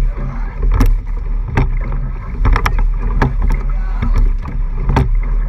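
Racing eight being rowed hard: sharp clacks from the oars turning in their oarlocks come a little under once a second, at each catch and release. Under them runs a steady rush of water along the hull and a low rumble.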